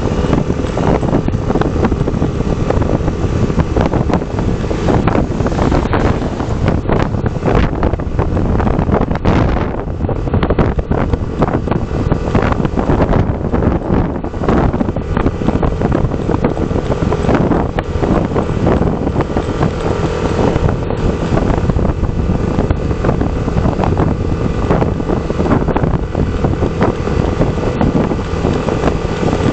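Heavy wind noise buffeting the microphone over a steady low rumble, with frequent knocks and rattles throughout.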